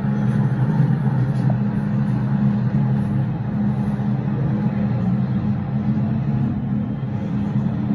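Steady loud low rumble in an MTR underground station, typical of a metro train running nearby, with no clear change or distinct events.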